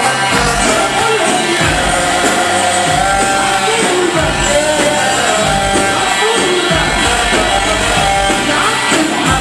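Loud amplified dance music with a heavy, steady beat and a voice singing over it.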